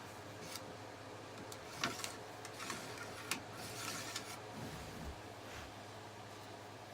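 Faint rubbing and scraping with a few light clicks: a brush being worked through the barrel of an 1866 lever-action rifle.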